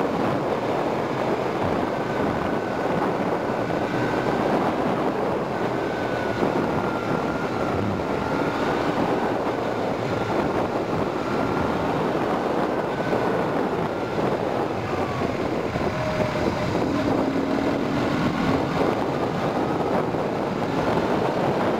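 Motorcycle on the move: steady wind rush over the microphone, with the engine's note faintly rising and falling underneath as the bike takes the curves.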